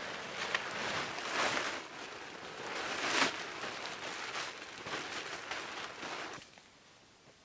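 Plastic tarp crinkling and rustling in uneven surges as it is shaken out and lifted by hand. It stops about six seconds in.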